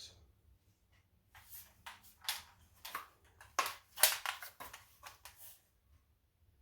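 A quick run of sharp clicks and knocks, about a dozen over some four seconds, from an AK-pattern rifle and its magazines being handled on a table.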